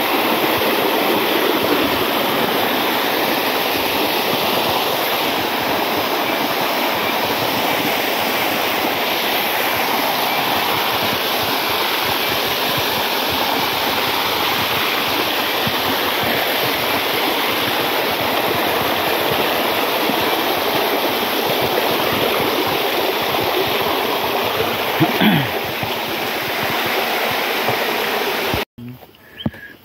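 Small waterfall pouring over rocks, heard close up: a loud, steady rush of falling water that cuts off abruptly near the end.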